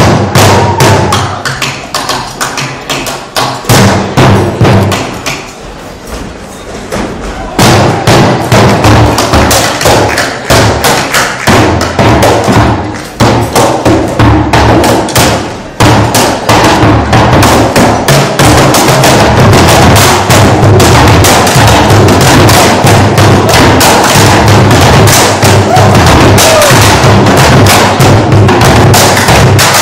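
Ensemble drumming on plastic recycling bins slung like dhols and beaten with sticks, playing bhangra chal rhythms. The strokes are sparser for a few seconds, then settle into a dense, steady pattern from about eight seconds in.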